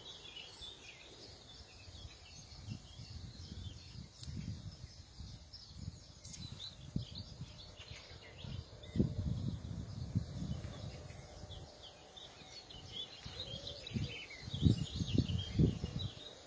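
Many small birds chirping and singing in the background, with irregular low rumbling thumps on the microphone, heaviest near the end.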